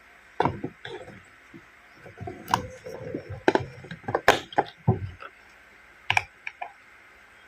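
Small plastic pieces of a toy mini-fridge playset handled and set down: irregular sharp clicks and light knocks, some with a soft thud.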